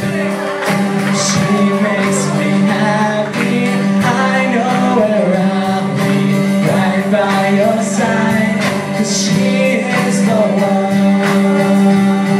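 Live band playing a song: sung vocals over acoustic and electric guitars, with a steady beat.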